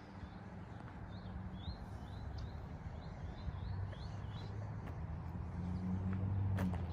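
Birds chirping, a quick series of short rising chirps, over a low steady engine hum that grows louder in the last couple of seconds.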